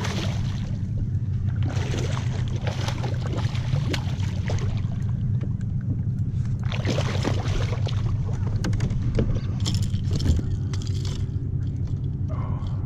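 A hooked bluefish thrashing and splashing at the water's surface beside a kayak hull as it is landed, in several rushing bursts, over a steady low rumble.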